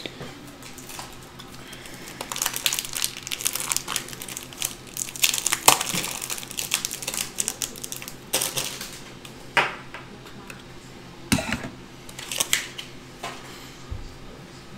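Crinkling, rustling and clicking of packaging and plastic card holders being handled, in irregular bursts with a few sharp clicks.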